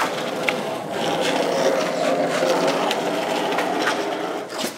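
Skateboard wheels rolling across a smooth indoor floor, a steady rolling rumble, with a sharp click about half a second in and another click near the end.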